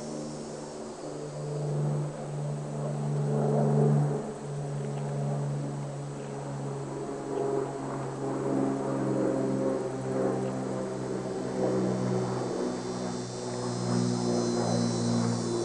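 A distant engine droning steadily, its pitch shifting slowly up and down over several seconds.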